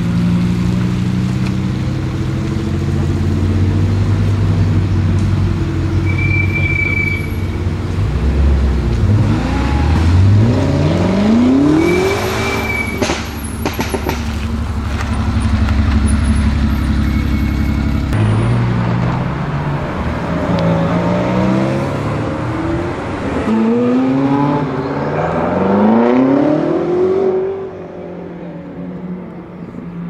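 A stage 2 tuned BMW M5 F90's twin-turbo V8 running and revving, then a classic Porsche 911's engine pulling away. Near the end the revs climb and fall several times in quick succession, and the sound changes abruptly between separate clips.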